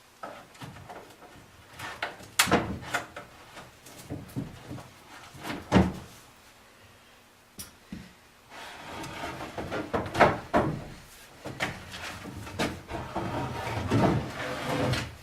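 Wooden cabinet parts knocking and scraping as an old wooden corner cabinet is worked apart by hand. There are sharp knocks about two and a half and six seconds in, then after a short lull a busier run of scraping and clattering wood.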